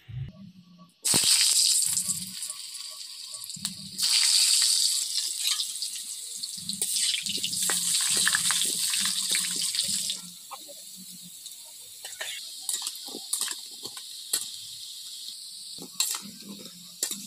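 Raw potato chunks going into hot oil in a metal kadai: a sudden loud sizzle about a second in that swells again about four seconds in. From about ten seconds in it settles to a quieter, crackling frying sizzle, with a metal spatula scraping the pan now and then.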